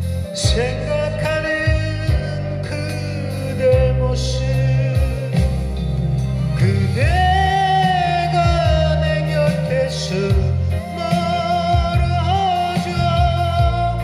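A man singing karaoke into a wired microphone, his voice amplified through a portable PA speaker over a karaoke backing track with bass and instruments. He holds some long notes.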